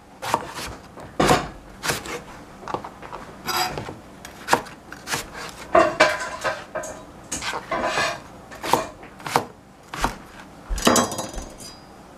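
Chef's knife cutting eggplant on a plastic cutting board: irregular knocks of the blade striking the board, a stroke every half second or so. Near the end, a short clatter as the knife is set down on the counter and the board is moved.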